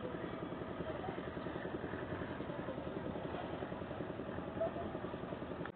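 An engine idling steadily, with a rapid, even pulsing.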